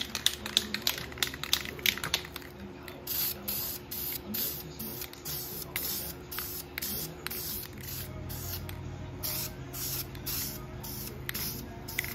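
Aerosol spray-paint can shaken with a quick run of clicks, then sprayed in many short hissing bursts as chrome headlight bezels are painted black.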